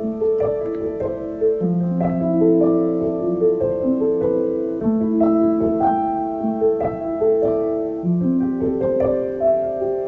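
Background music: a gentle piano melody of sustained single notes and chords, evenly paced.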